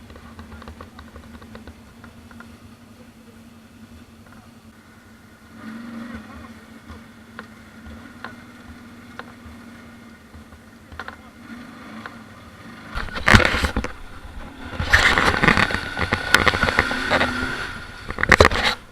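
ATV engine running steadily at low revs, then revved hard in several loud surges over the last third.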